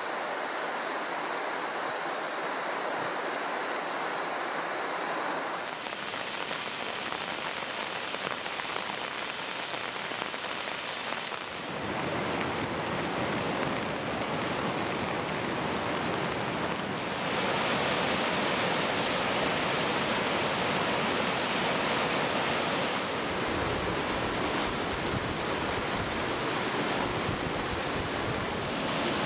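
Middle Fork Snoqualmie River running high near flood stage, a steady rushing of fast water. The level and tone change abruptly several times, at cuts between shots of the river.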